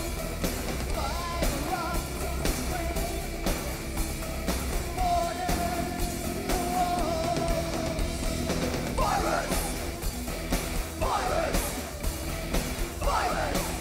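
Live industrial metal band playing over a steady drum beat, with a long held sung note and yelled female vocal phrases about 9, 11 and 13 seconds in.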